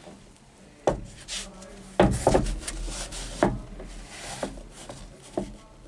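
Handling sounds on a tractor's fabric operator seat: a handful of dull knocks and rubbing as a hand presses the cushion, the loudest cluster about two seconds in.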